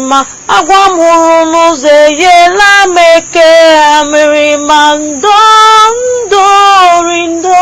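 A high voice singing a wordless soundtrack melody: long held notes with vibrato, sliding from one pitch to the next, over a faint steady high tone.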